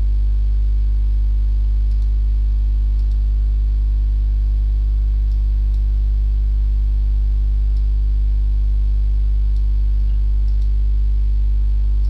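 Steady, loud low electrical mains hum with a stack of buzzy overtones on the recording, unchanging throughout. A few faint clicks sound now and then over it.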